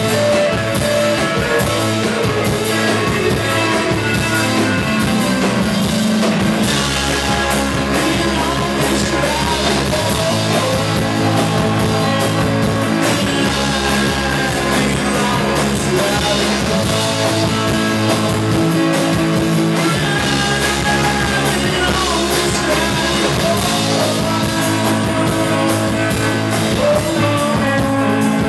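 A rock band playing live: electric guitar, electric bass and drum kit, steady throughout.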